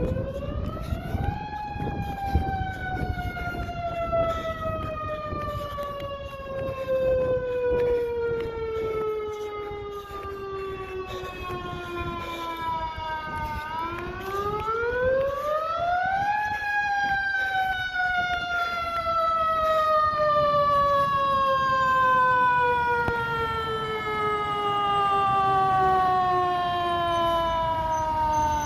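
Fire siren sounding for an alarm response. Its wail rises quickly in pitch, then slowly falls over about twelve seconds, twice.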